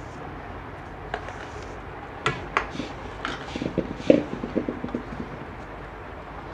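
Steel bowl knocked a few times against a steel kadhai while powdered sugar is emptied into it. Then comes a quick run of short clinks and knocks as a hand mixes the sugar into roasted besan in the pan.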